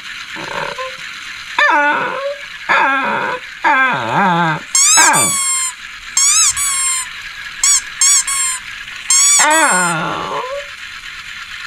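Shih Tzu vocalizing in a string of about nine whining, yowling calls with short gaps between them, each sliding up and then down in pitch, some short and some drawn out over most of a second.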